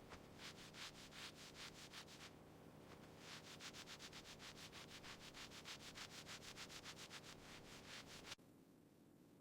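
Hand sanding: rapid back-and-forth rubbing strokes, about six a second, pausing briefly about two seconds in, then resuming until they stop abruptly near the end.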